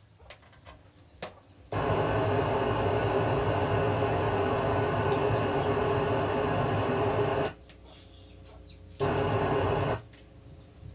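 Amplifier and loudspeaker giving out a loud, steady buzzing hiss as the microphone channel is opened. It switches on abruptly about two seconds in and cuts off about five seconds later, then comes back for about a second.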